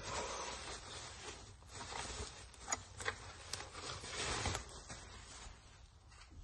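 Plastic bubble wrap rustling and crinkling as it is pulled off a boxed item by hand, with scattered sharp crackles; it dies down near the end.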